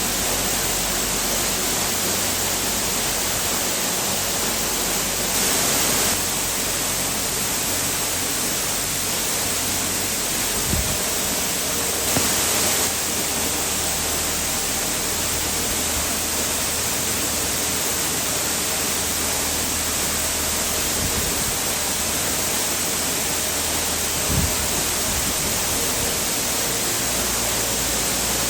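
Steady rushing noise of water, with a couple of faint low thumps around the middle and near the end.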